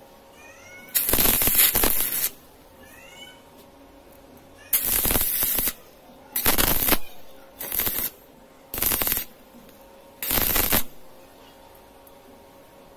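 Stick-welding arc crackling and sizzling as a flux-coated electrode lays short welds on a steel tube, in six separate bursts: the longest lasts just over a second, the rest half a second to a second.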